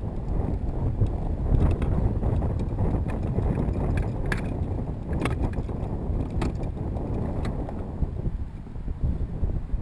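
Wind rumbling on the microphone on an open river kayak, a steady low rough noise, with a few sharp clicks through the middle.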